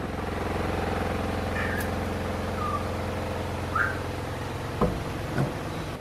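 A steady low mechanical hum of a motor running. Over it come three faint short bird chirps in the middle and two soft knocks near the end.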